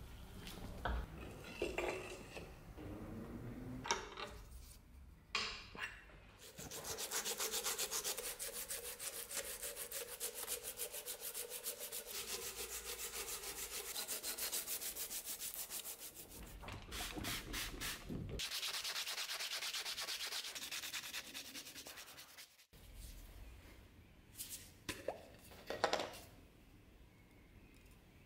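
Sanding and rubbing a deer-antler knife handle: two long stretches of fast, evenly repeating rasping, with short scrapes and handling knocks before and after.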